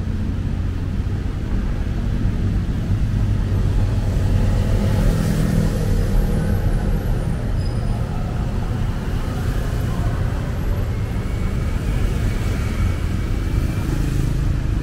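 City road traffic: a steady low rumble of cars and other vehicles running along the street, with passing vehicles swelling louder about five seconds in and again near the end.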